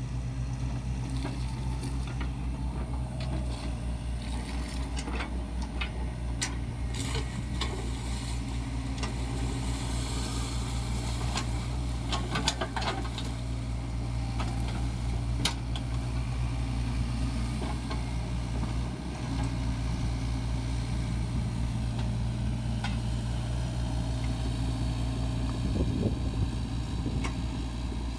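Diesel engine of a Sany SY55C mini excavator running steadily under work, with scattered clicks and knocks over it and a brief dip in the engine about two-thirds of the way through.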